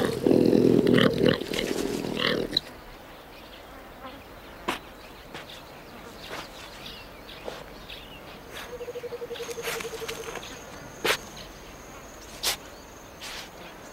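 A loud, harsh animal growl that stops about two and a half seconds in. After it comes a quiet stretch with a few sharp clicks, a short rapid buzzing rattle around the middle, and a thin high steady whine through the second half.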